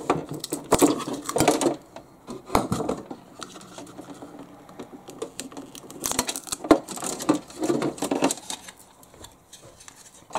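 Handling noise inside a plastic RC boat hull: a mounting block with speed controllers and wiring stuck to it being pried and pulled loose, with irregular scraping, rustling and sharp clicks. The noise comes in two busy spells with a quieter stretch between them.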